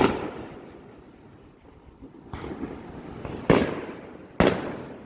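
Fireworks going off: three sharp booms, one right at the start (the loudest), one about three and a half seconds in and another about a second later, with a spell of crackling just before the second boom.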